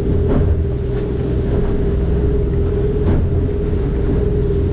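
Motorboat engine running steadily at trolling speed, a constant hum over a low drone, with a couple of short splashy bursts about a third of a second in and about three seconds in.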